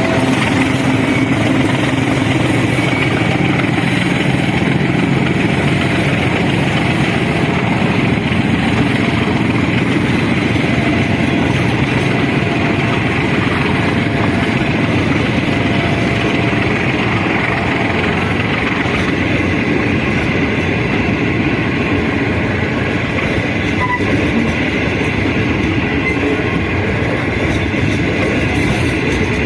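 Passenger train hauled by a DF7G-C diesel-electric locomotive running along the track: a loud, steady rumble of engine and wheels on rail.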